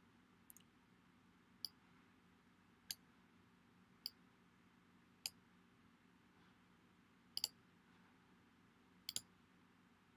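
Computer mouse clicking over near silence. There is a faint click, then four single clicks about a second and a quarter apart, then two quick double clicks near the end.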